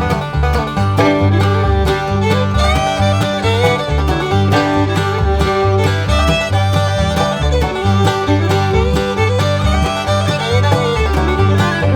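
Background music in a bluegrass or country style, with a plucked banjo and guitar, a fiddle melody and a steady bass line.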